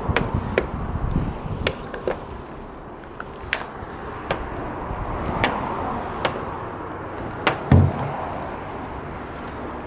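A car wash foam brush scrubbing a foamed car body, with scattered light clicks and one dull thump late on.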